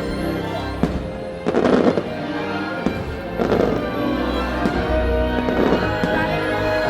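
Fireworks bursting, several bangs with crackling tails about a second apart, over the show's music playing from loudspeakers.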